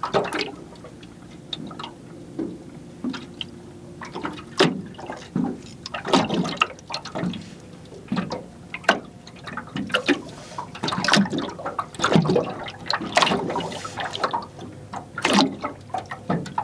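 Water slapping and lapping against the hull of a small aluminium boat, in irregular splashes of uneven strength.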